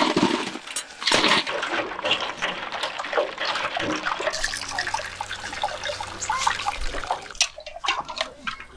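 Ice chunks clattering into a steel pot, then a ladle stirring and sloshing falsa juice among the ice, and liquid splashing as it is scooped with a steel mug. Clattering and splashing run throughout, loudest about a second in.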